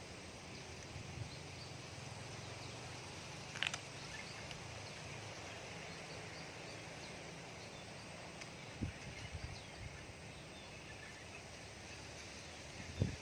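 Quiet outdoor ambience: a steady hiss with faint, scattered bird or insect chirps. There is one sharp click a few seconds in and a few soft knocks past the middle.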